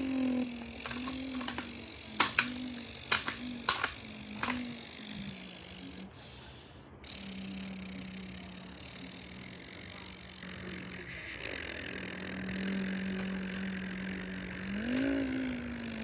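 A person imitating a car engine with their voice: a low hum pulsing in short humps with a few sharp mouth pops among them, then a long steady low drone that rises in pitch briefly near the end like a rev.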